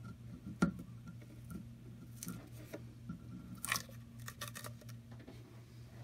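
Green painter's tape being picked and peeled off a metal shower drain grate: a sharp click about half a second in, then several short crackles as the tape tears away.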